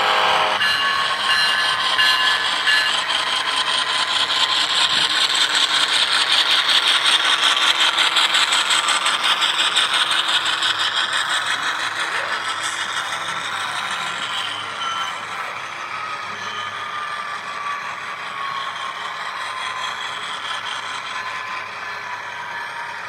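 Model freight train rolling past, the wheels of a string of covered hopper cars clicking and rattling rapidly on the track, loudest about seven seconds in and then fading. A thin whine runs underneath, slowly falling in pitch.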